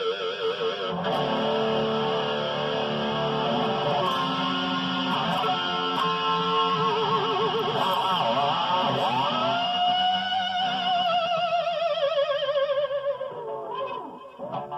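Electric guitar with EMG active pickups played through an effects unit with some distortion: sustained notes with wide, wavering vibrato and pitch bends that dip and come back up, ringing out and fading away near the end.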